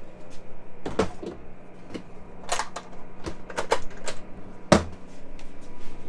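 Wooden interior cabinetry being handled: a run of irregular knocks and clicks, with a louder, deeper thump near the end.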